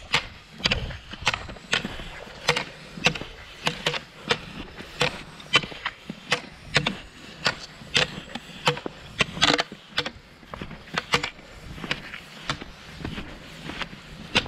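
Cross-country ski poles planting in thin snow in a steady rhythm, each plant a sharp click, about two to three a second, with Fischer Twin Skin skis scraping and shuffling over the snow between them.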